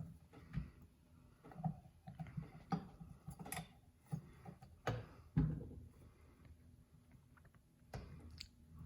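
Irregular small clicks and knocks of metal gear parts being handled and fitted into a KitchenAid Pro 550 HD stand mixer's gearbox, about eight in all, the loudest about five and a half seconds in.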